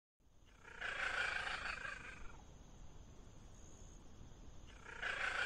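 A cat calling twice, each call drawn out for about a second and a half, with a pause of a few seconds between them.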